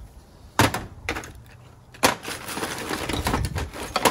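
Tools and small hardware clattering in a tool-chest drawer as a hand rummages through them: two sharp knocks, then from about halfway a steady run of rattling and clinking.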